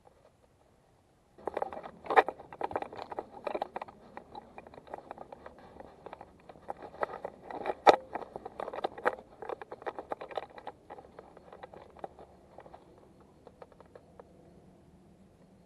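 Dense, irregular clicks and scraping close to the microphone, starting after a near-silent second or so and thinning out in the last few seconds.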